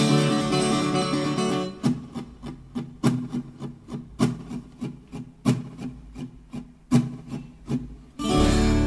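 Background music on an acoustic guitar: ringing chords at first, then single notes plucked one at a time, and a fuller, louder chord starting near the end.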